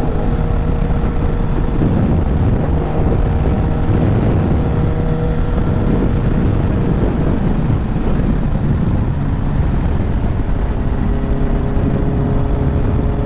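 Storm-force wind buffeting the microphone in a steady low rumble while riding, over the faint, steady hum of a Honda CBR650F's inline-four engine.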